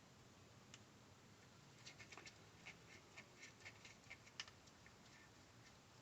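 Faint, quick clicks and ticks of small tools and tiny parts being handled during iPhone SE reassembly, a scattered run of them from about two seconds in to about five, with one sharper tick near the end of the run; otherwise near silence.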